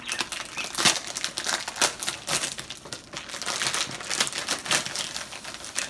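Crinkly plastic wrapping crackling and rustling as it is torn open and pulled off a toy wand's cardboard box. The crackles come in a dense, irregular run.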